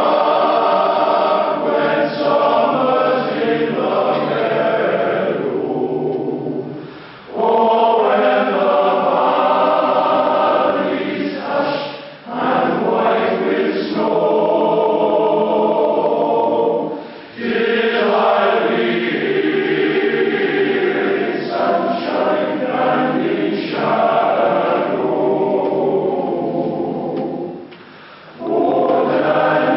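A choir singing in long phrases, with short breaks between them.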